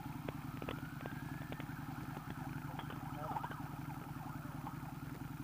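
Scooter engine idling steadily, with scattered light clicks. A faint wailing siren-like tone rises over the first two seconds.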